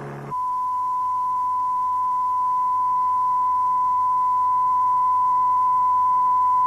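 Steady 1 kHz test tone, a pure electronic beep held on one pitch. It starts shortly after the beginning and grows slightly louder. It is the reference tone used for training the ear to judge sound frequency.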